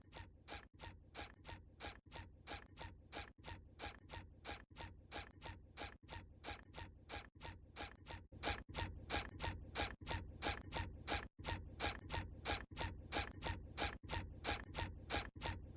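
Steady, rhythmic clicking, about three clicks a second, like a ratchet turning, over a low rumble. It gets louder about eight and a half seconds in.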